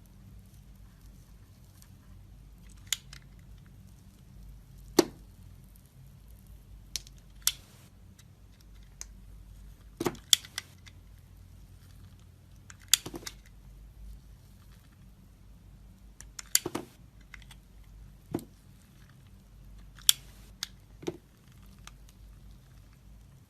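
Dry bar soap snapping and crunching in sharp, crisp cracks, about a dozen of them spaced irregularly, each over in a moment.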